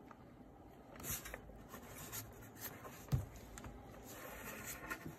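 Handling noise from a Sharp VL-E630 camcorder being turned over by a gloved hand: the body rubbing and scraping, with light clicks and one sharper knock about three seconds in.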